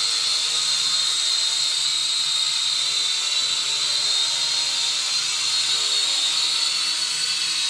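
Mini toy quadcopter drone in flight, its small motors and propellers giving a steady high-pitched buzzing whine that holds level throughout.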